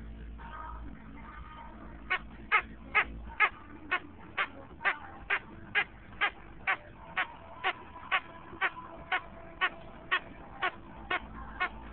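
Squeaky frog chew toy squeaking in a steady rhythm, about twice a second, as a bullmastiff chews on it; the squeaks begin about two seconds in.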